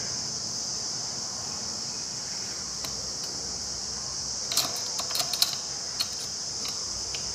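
Sharp plastic clicks and rattles of a phone being worked into the clamp of a table-top mobile stand's holder, mostly in a cluster about halfway through, over a steady high chirring of insects.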